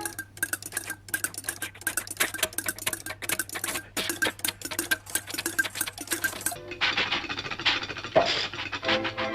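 A hand-worked studio sound-effect prop clattering: a fast, irregular run of sharp clicks and knocks over a faint steady tone. About seven seconds in it gives way to a different, duller sound with a few pitched notes.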